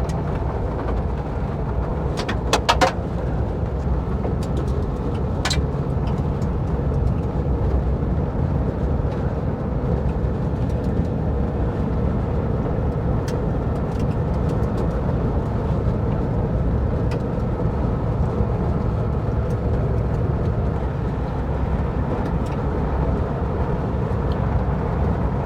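1958 Volkswagen Bus driving over a rough off-road trail: a steady low engine drone with road noise. A few sharp knocks and rattles come from the bus bouncing over rocks, the loudest a cluster about three seconds in and another a couple of seconds later.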